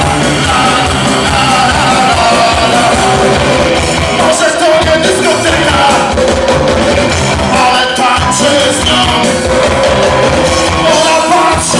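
Live rock band playing loud: electric guitars, bass guitar and drum kit, with a singing voice over them.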